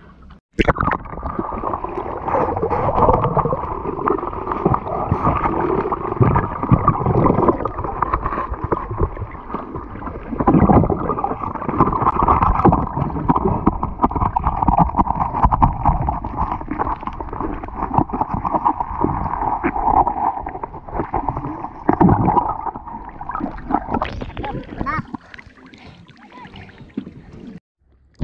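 Muffled underwater rushing and gurgling picked up by an action camera in a waterproof housing submerged in shallow sea water, with a few dull thumps as the diver digs in the sandy bottom. The sound thins out and changes in the last few seconds.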